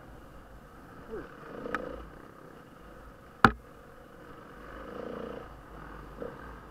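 Enduro dirt bike engine running, its note rising and falling as it rides, with one sharp knock about halfway through.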